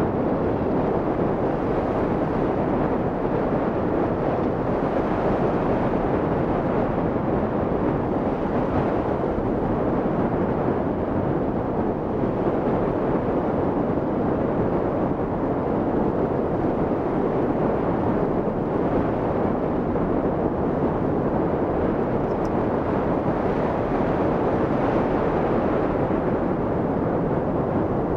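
Steady rush of air over the microphone of a camera mounted on a hang glider in flight, an even roar with no breaks or changes.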